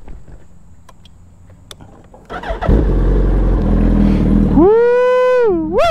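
A Suzuki Hayabusa's inline-four engine is started, catching about two seconds in and settling into an idle. Near the end it is revved twice, the pitch rising, holding and dropping back before rising again.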